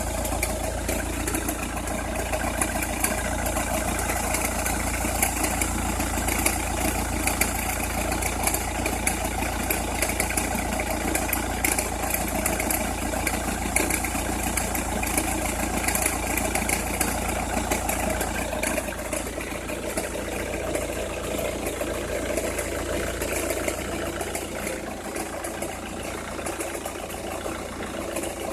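Opel Meriva engine idling, with irregular crackling clicks over the steady running. This is the cracking noise that appears only with a cold engine or at very low revs.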